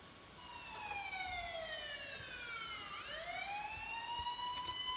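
Police car siren wailing: a slow falling tone that sweeps back up about three seconds in and begins to fall again near the end.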